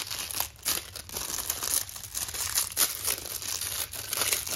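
Clear plastic wrap crinkling and tearing in quick, irregular crackles as it is pulled off a rolled canvas.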